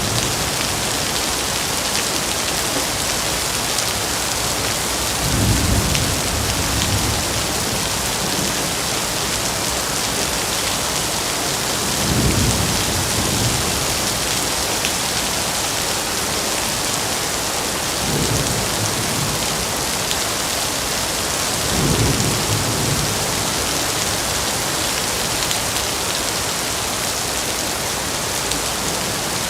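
Steady rain falling in a forest, an even hiss throughout. Four short, low rumbles swell up and fade through it, spread a few seconds apart.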